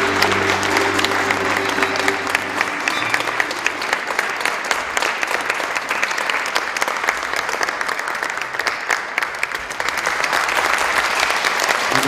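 Audience applauding and cheering at the end of a performance, clapping throughout, while the music's final held chord dies away about two and a half seconds in.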